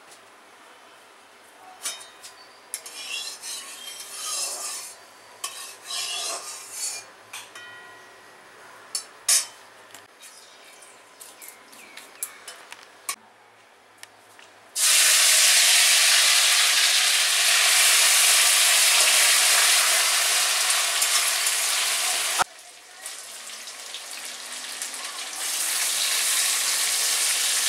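Scattered clinks and small handling noises, then about halfway through ingredients go into hot oil in an aluminium kadai and the oil breaks into a loud, steady frying sizzle. The sizzle drops away abruptly for a moment and comes back, growing louder near the end.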